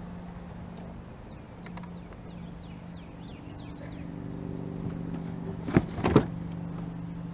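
Steady low engine hum in the background, with a bird's short falling chirps in the first half. About six seconds in come two sharp clicks as fishing tackle is handled.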